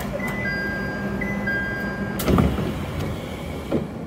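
Electronic chime tones at a train's door for about two seconds over a steady hum, then a heavy thump as a passenger steps off onto the platform, followed by footsteps on the pavement.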